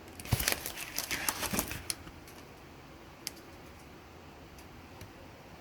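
Pages of a book being handled and turned: a quick run of rustles and clicks in the first two seconds, then one more click about three seconds in.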